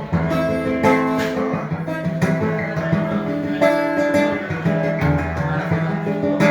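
Acoustic guitar strummed in steady chords, an instrumental bar between the sung lines of a song.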